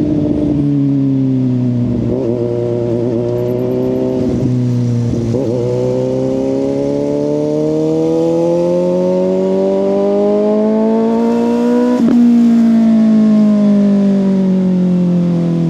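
Suzuki GSX-S750's inline-four engine through a Yoshimura exhaust, under way: the pitch wavers briefly twice early on, then climbs steadily for about six seconds under acceleration. A sharp click comes at the peak, about twelve seconds in, after which the pitch falls steadily.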